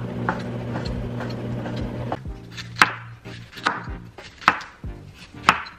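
Chef's knife chopping red bell pepper on a wooden cutting board, the blade striking the board about once a second from about two seconds in.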